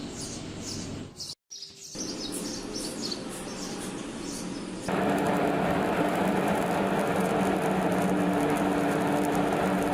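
Birds chirping over a steady background noise, broken by a brief dropout. About five seconds in, it switches abruptly to a louder, steady machine hum with low droning tones.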